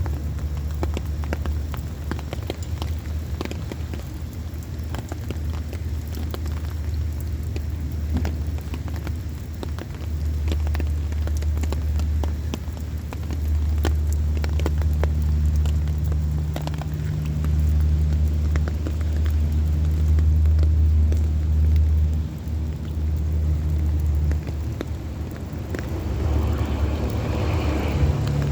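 Heavy rain falling, with scattered sharp drop ticks, over a steady low rumble that swells and eases every few seconds. The rain grows denser near the end.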